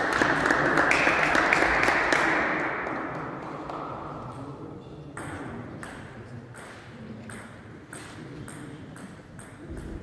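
Echoing noise in a large sports hall that fades away over the first few seconds. Then come scattered sharp clicks and taps, roughly every half second, the small sounds of play stopped between points at a table tennis table.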